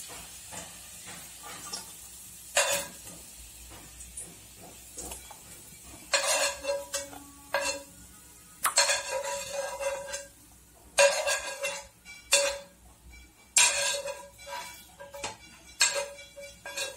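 Fried sliced onions being scraped out of a pan onto a stainless-steel plate with a metal utensil. There are about a dozen irregular sharp metallic clinks and scrapes, each with a short ringing tone.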